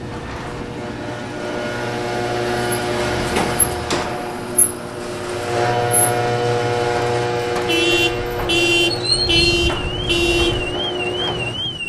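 A noisy garage door grinding and squealing as it moves, with a few clanks. About eight seconds in, car alarms start, first with rapid beeping and then a warbling wail.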